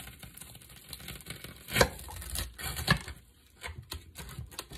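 Chef's knife sawing through a crisp toasted sandwich, the toasted bread crunching and crackling under the blade, with two louder cracks about two and three seconds in.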